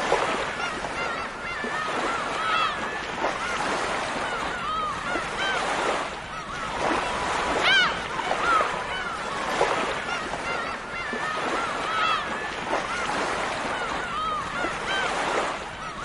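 A flock of gulls calling over one another in many short, arching cries, with one louder cry about eight seconds in, over the steady wash of surf.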